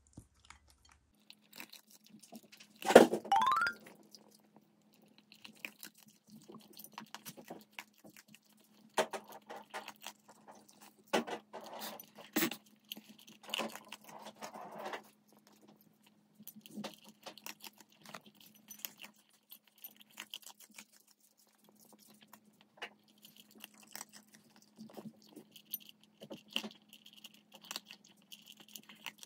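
A Shiba Inu eating, with scattered clicks and short crunchy bursts of chewing that are busiest in the middle. A brief loud sound with a rising pitch comes about three seconds in.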